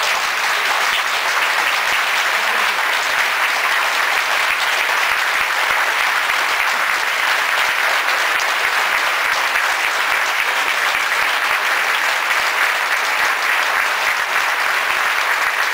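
Large audience applauding, a steady even clapping.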